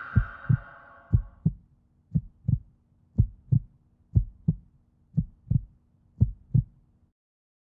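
Heartbeat sound effect: seven double thumps (lub-dub), about one a second, which stop abruptly about seven seconds in. The tail of a song fades out under the first beats.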